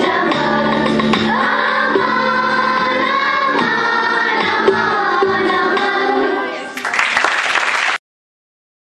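A school choir of girls singing together, a sustained sung melody. Near the end the singing gives way to a short noisy burst, and the sound cuts off abruptly.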